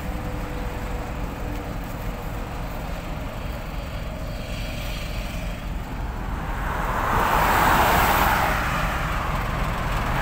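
Road traffic: a steady low rumble, with a vehicle passing that swells from about six and a half seconds in and is loudest around eight seconds.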